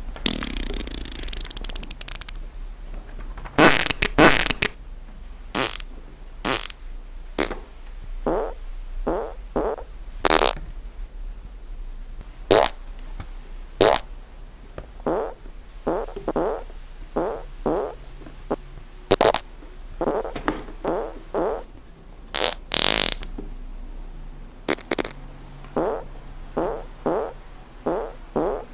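A long run of short fart sound effects, many sliding down in pitch, about one a second with some in quick pairs, after a couple of seconds of hissing noise at the start.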